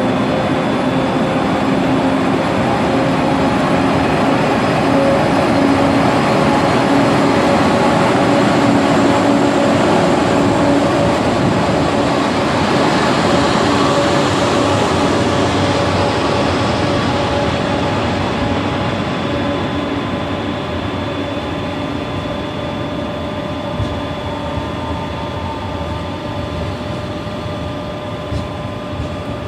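A train running along the station tracks: steady rolling noise with a few held hum tones. It is loudest about a third of the way in and slowly fades over the last third, as the train moves off.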